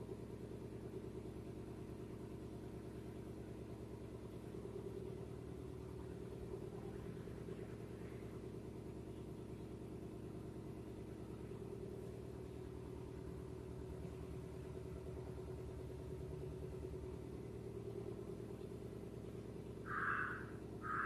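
A faint, steady low hum runs throughout. Near the end come two short squeaks, plausibly of a marker drawn across a whiteboard.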